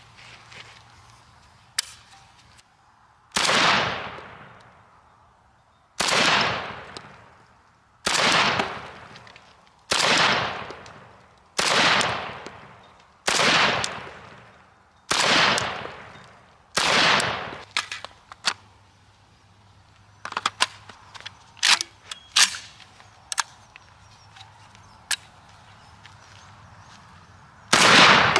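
Molot Vepr 12 12-gauge semi-automatic shotgun firing eight shots, about one every two seconds, each with a long fading tail. A run of short, sharp clicks and clacks follows, and near the end a quick string of shots begins.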